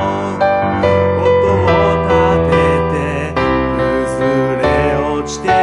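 Piano accompaniment with a man singing over it in long held notes that waver in pitch.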